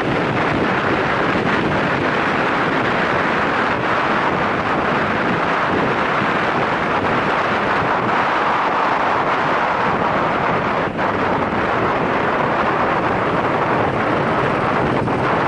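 Steady wind rushing over the microphone of a Yamaha SRX400 single-cylinder motorcycle being ridden at speed, with engine and road noise underneath.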